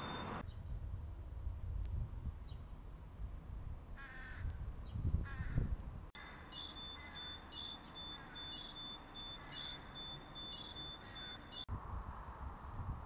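Crows cawing, two short calls over low street rumble. Then a steady high tone with short beeps about twice a second, typical of an audible pedestrian-crossing signal.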